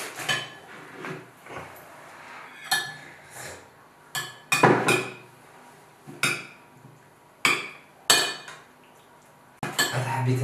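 Dishes and cutlery clinking and clattering as they are handled, in separate knocks spaced one to two seconds apart.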